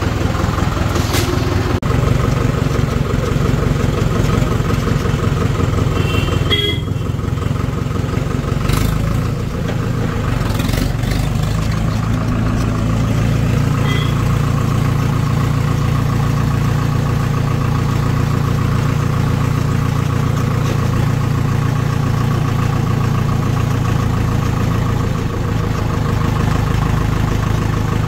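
Farmtrac tractor's diesel engine running steadily while the tractor drives along, heard from the driver's seat, with a few brief clicks and rattles over it.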